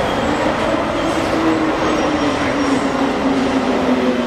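Roosevelt Island Tram aerial cable car running along its cables past a support tower, heard from inside the cabin: a steady rumble of the carriage rolling on the track ropes, with a whine that slowly falls in pitch.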